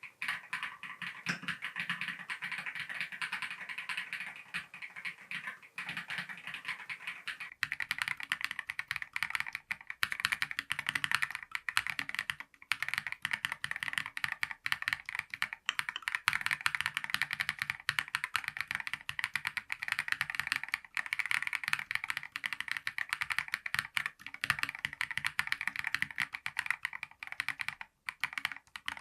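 Continuous typing on a KiiBOOM Phantom 68 transparent keyboard with its stock Crystal switches: rapid, overlapping key clacks. About seven seconds in the clacks become louder and fuller.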